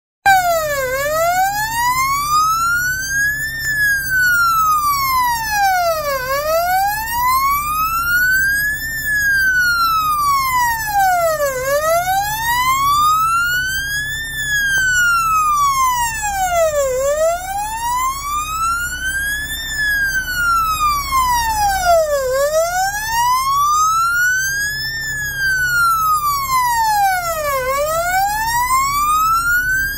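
Volvo FL6 fire engine's siren sounding a slow wail, rising and falling in pitch about every five and a half seconds, with a low steady hum underneath.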